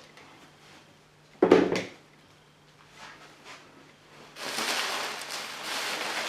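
Packaging being handled while unboxing: a single loud knock about one and a half seconds in, then from about four seconds in a steady rustle of plastic wrapping being pulled away.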